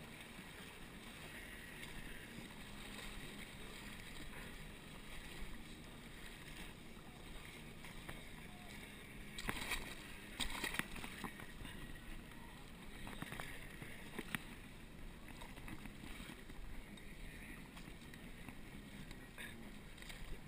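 River current rushing and splashing around an inflatable kayak, a steady wash of water noise. About halfway through come a few sharp paddle splashes and knocks, and a couple more near the end.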